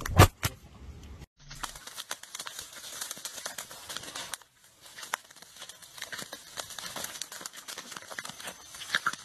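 A couple of loud knocks at the very start. Then, after a short break, two puppies scuffle over a metal dog bowl on grass: a dense crackle of rustling with small clicks and knocks.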